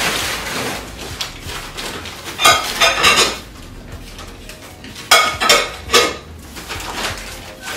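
Clear glass bowls and lids clinking against each other as they are unwrapped and set down: a few sharp, ringing clinks about two and a half seconds in and another few about five seconds in. Paper wrapping rustles at the start.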